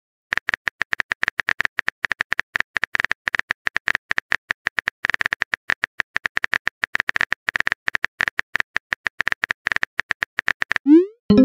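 Keyboard typing sound effect from a texting app: a rapid, uneven run of short clicks as a message is typed. Near the end comes a rising swoosh, the message-sent sound.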